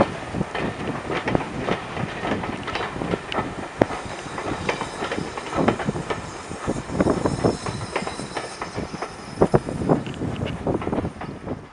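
Railway passenger coaches rolling past, their wheels clattering over rail joints in a rapid, irregular clickety-clack that dies away at the end as the last coach goes by.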